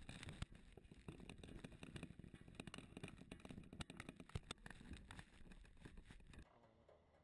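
Faint rubbing and crackling handling noise from a camera in its housing, with many scattered small clicks. It stops abruptly near the end, leaving near silence.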